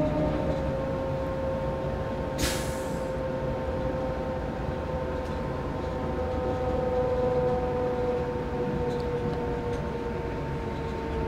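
Electric commuter train running over the track with a steady rumble, its motor whine falling slowly in pitch as it slows into a station. There is a short hiss about two and a half seconds in.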